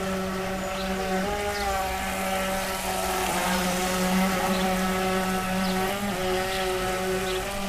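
Electric RC model speedboat's motor whining as the boat runs at speed across the water, its pitch shifting a few times.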